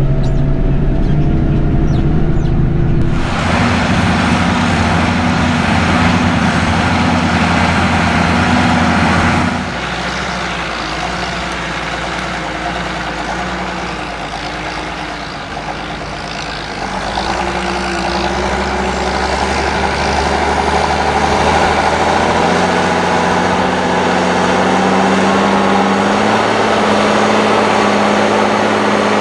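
SAME Titan 190 tractor's diesel engine working hard under load, pulling a plough through the soil. It is heard from inside the cab for the first few seconds, then from outside. The engine note drops and the sound gets quieter about ten seconds in, then rises again from about seventeen seconds.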